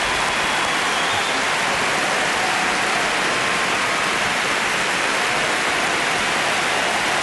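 Large audience in an arena clapping, a dense, even applause that holds steady throughout.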